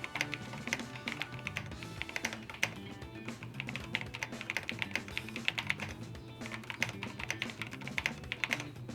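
Typing on an AKKO mechanical keyboard: runs of quick key clicks over background music.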